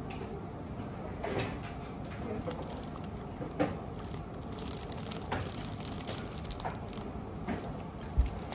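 Clear plastic pastry bag crinkling in the hands, a few short rustles scattered through, over a steady murmur of café background chatter.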